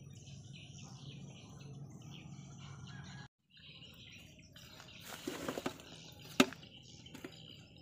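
Small birds chirping over a low steady hum. After a brief dropout about three seconds in, there is close rustling and handling noise, then one sharp click about six seconds in.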